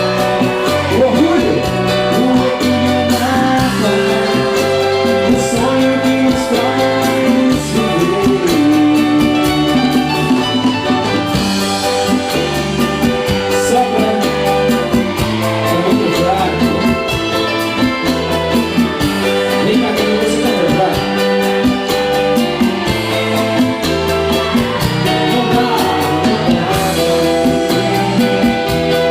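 Live band music with a singer, guitar, bass and drum kit keeping a steady beat.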